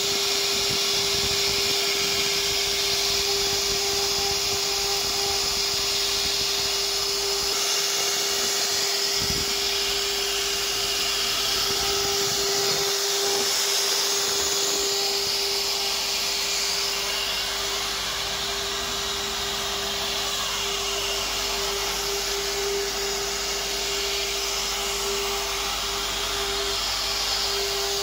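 CNC router spindle running at a steady whine while its bit carves a pattern into a board, with a constant hiss from the cut.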